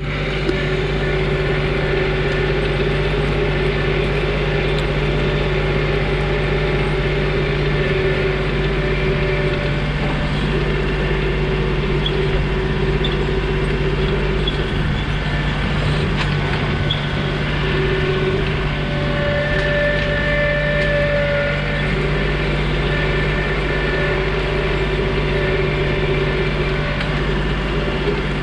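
John Deere 2032R compact tractor's three-cylinder diesel engine running steadily, with a higher tone that drops out and comes back a few times.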